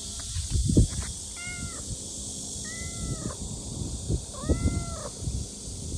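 A kitten meowing three times: short, high calls that rise and fall in pitch. Low bumps and rustling run underneath, with a loud low thump about a second in.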